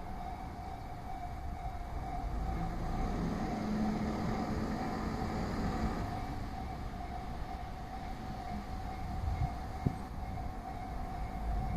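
Level-crossing warning bell ringing steadily over the low rumble of a KiHa 47 diesel railcar passing through the crossing, with a few sharp knocks near the end.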